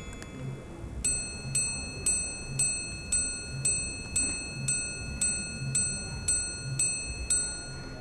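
Minute repeater of a titanium Bulgari Daniel Roth tourbillon wristwatch striking the minutes: after a short pause, thirteen evenly spaced single high chimes, about two a second, each ringing briefly. Faint low thuds sound between the chimes.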